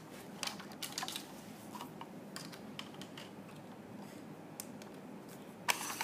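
Scattered light clicks and taps, a few every second, with a brief cluster of louder clicks near the end.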